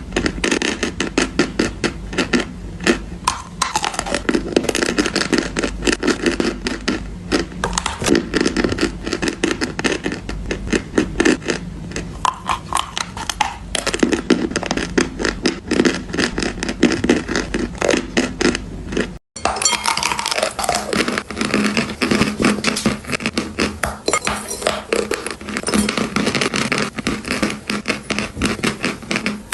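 Gym chalk being bitten and chewed close to the microphone: a dense, continuous crunching and crackling. It breaks off for a split second about two-thirds through, then carries on.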